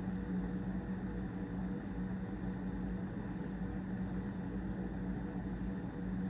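Steady machine hum with a low drone and an even hiss, unchanging throughout.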